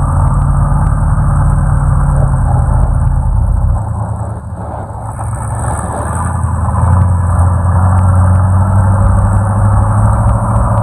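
Off-road truck engine running loud, easing off about four seconds in, then building back up.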